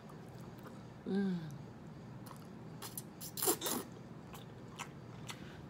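Close-up mukbang eating sounds of a person eating spaghetti: scattered wet mouth clicks and smacks from chewing, busiest a little past the middle, with a short hum about a second in.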